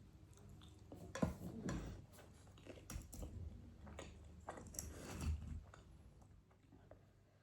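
A person chewing and eating close to the microphone, with a series of faint clicks and mouth sounds that die away near the end.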